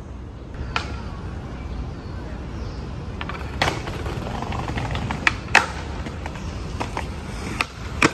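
Skateboard rolling over brick and stone paving: a steady rumble from the wheels that grows louder as the board comes closer, with several sharp clacks from the board, the loudest about five and a half seconds in and just before the end.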